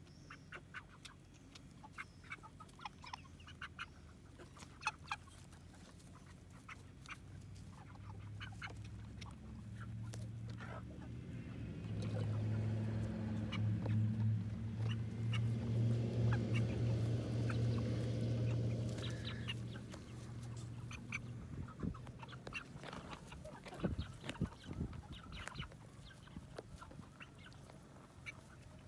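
A flock of geese flying over, honking, the sound swelling for several seconds to a loud peak midway and then fading, with a low hum under it at the peak. Cornish Cross broiler chickens cluck and peck close by throughout.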